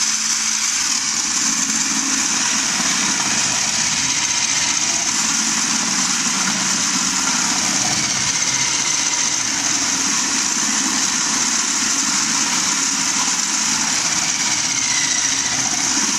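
Electric food processor running steadily at high speed as whole carrots are fed down its tube and shredded, the motor's whine mixed with the grating of carrot.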